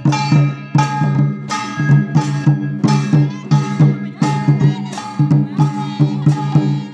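Santali folk dance music: double-headed barrel hand drums beaten in a quick, even rhythm under a bamboo flute melody.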